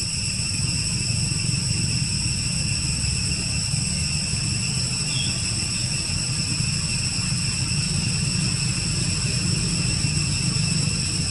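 Steady outdoor background: a low rumble with a constant high-pitched whine of several tones layered on top, unchanging.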